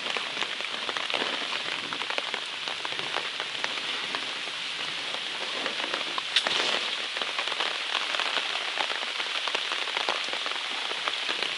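Steady rain falling on leaves, a continuous hiss scattered with many close individual drops ticking; one louder drop hits about six seconds in.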